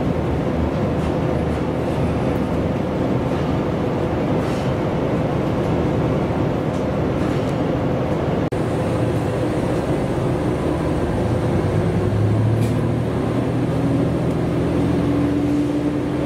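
Diesel railcar running, heard from inside the cabin: a steady engine drone mixed with running noise from the rails. Near the end the engine note rises a little in pitch as the railcar picks up speed.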